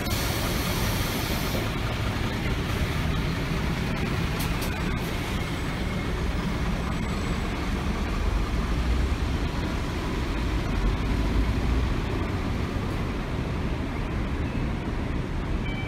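Diesel city bus engines running in a bus terminal, with a steady low rumble. One bus pulls away, and its engine swells and then fades from about eight to twelve seconds in. A short hiss comes near the start.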